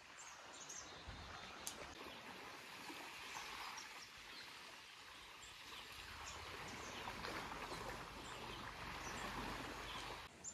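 Wind rustling through tree leaves, a steady soft hiss, with faint scattered bird chirps. About six seconds in, a low rumble joins.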